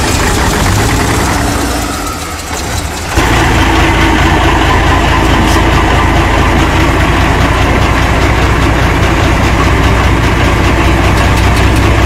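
A large diesel engine running on a test stand. About three seconds in, the sound cuts to a louder, steady run of a heavy machine's diesel engine with strong low-end rumble.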